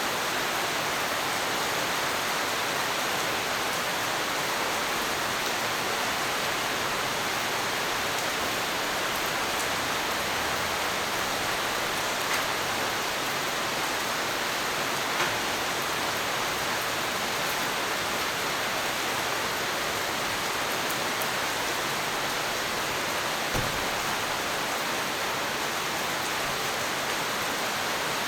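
Steady heavy rain falling, a dense even hiss, with a few single louder drops or taps standing out now and then.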